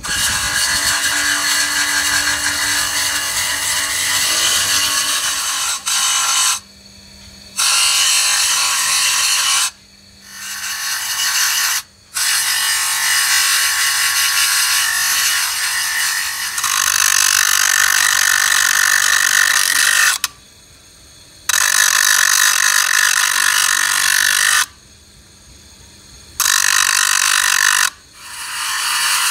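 Steel pinion gear teeth being ground on a bench grinder's thin abrasive disc: a loud, hissing grind in long spells. Several short breaks, about a second each, leave only the grinder motor's steady hum as the gear is lifted off the disc.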